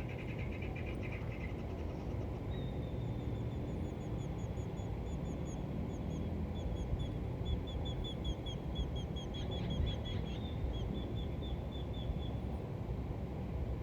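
A songbird singing a long run of short, quickly repeated chirps, about three a second, over a steady low rumble.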